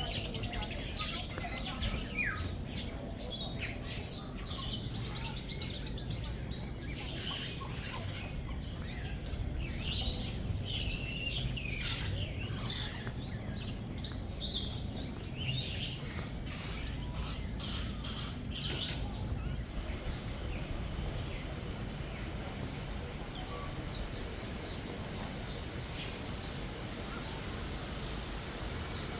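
Many small birds chirping and trilling over a steady high-pitched insect-like whine and low background rumble; the birdsong stops about two-thirds of the way through, leaving the whine.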